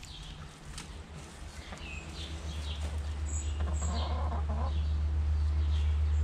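Hens clucking with a few short calls, over a low steady rumble that grows louder from about two seconds in.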